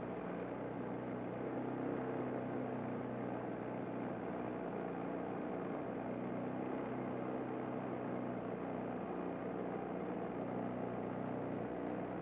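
Tohatsu 5 hp outboard motor running at a steady speed, pushing a small boat along.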